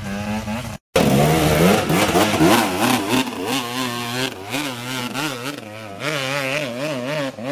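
Enduro motorcycle engine revving hard, its pitch rising and falling over and over as the bike churns through deep mud. The sound cuts out for a moment about a second in.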